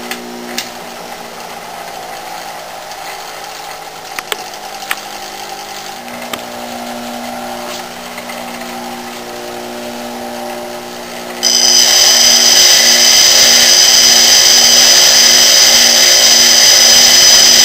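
Craftsman bench grinder running with a steady motor hum and a few light clicks. About two-thirds of the way in, a high-speed steel lathe tool bit is pressed against the coarse wheel and a loud, high-pitched grinding sound takes over.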